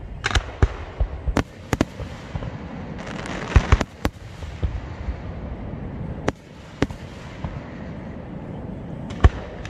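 Fireworks display: shells bursting in an irregular string of sharp bangs, about ten in all, with a quicker cluster of three about three and a half to four seconds in.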